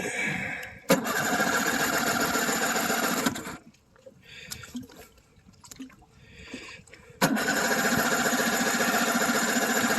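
Electric starter of a 9.9 hp Johnson outboard cranking the motor in two bursts of about two and a half seconds each, each one opening with a click. The engine does not catch.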